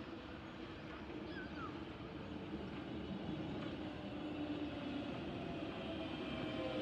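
London Underground 1996 Stock Jubilee line train running into the platform, its rumble growing steadily louder as it approaches. A whine of several steady tones from its traction motors comes up near the end as it slows into the station.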